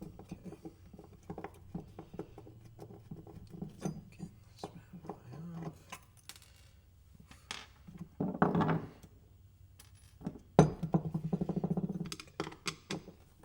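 Hand tools and small metal parts clinking and tapping while a tight fastener on the Crazy Cart's wheel hub is worked loose. About ten seconds in comes a sharp knock, then a second or so of rapid, even clicking.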